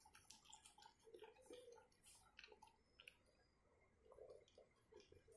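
Faint, irregular clicks and smacks of a Labrador eating cooked rice from a bowl, chewing and mouthing the food.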